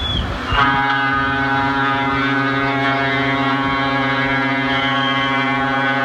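SS Stella Solaris's ship's horn sounding one long, steady blast at a low pitch, beginning about half a second in.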